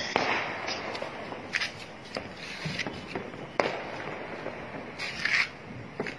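A lit firework fuse burning on a rooftop pole: short hisses and about four scattered sharp cracks over several seconds.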